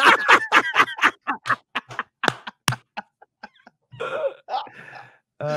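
Two men laughing hard: a fast run of short, breathy laugh pulses that thins out over about three seconds, followed by a few wheezy laughs near the end.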